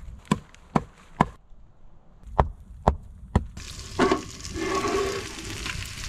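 Six sharp chopping knocks, then food sizzling in a hot pan from about three and a half seconds in.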